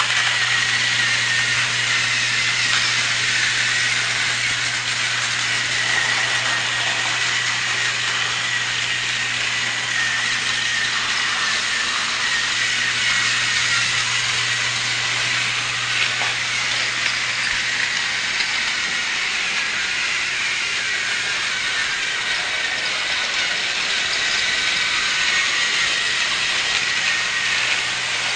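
Small battery-powered motor of a TrackMaster toy train running steadily, with a high, slightly wavering whine.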